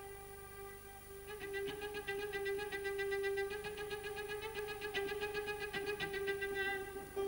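Solo cello and orchestral strings playing a contemporary cello concerto. A note is held throughout, and a fast repeated figure enters about a second in and stops shortly before the end.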